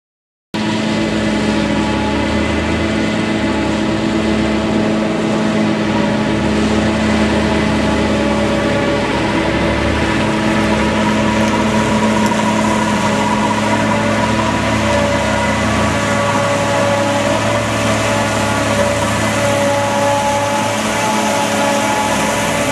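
Claas Jaguar 960 forage harvester and the tractor running alongside it, working steadily while chopping: a dense, steady engine drone with several held tones. It cuts in suddenly about half a second in.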